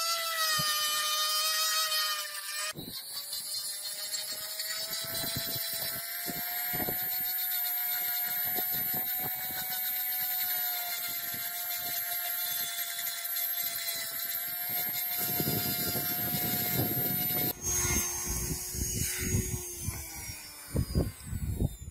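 Small cordless rotary tool spinning a sanding drum with a steady high whine, with scratchy grinding as the cleaver's steel blade and wooden handle are pressed against it. Near the end the whine drops lower and falls in pitch as it slows, with a few knocks.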